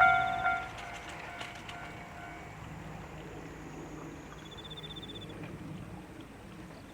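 Japanese railway crossing bell ringing its last few strikes, about two a second, and stopping about half a second in. A low steady background hum follows, with a brief faint high trill near the middle.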